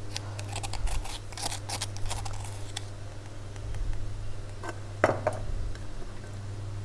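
Pot of fish curry heating on a gas stove, on its way to the boil: scattered small ticks and pops, busiest in the first couple of seconds, with a sharper click about five seconds in, over a steady low hum.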